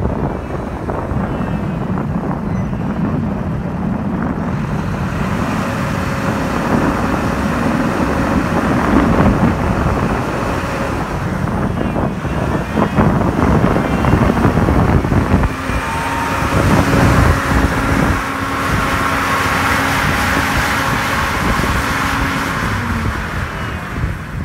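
Heavy snow-removal machinery running steadily, with strong wind buffeting the microphone.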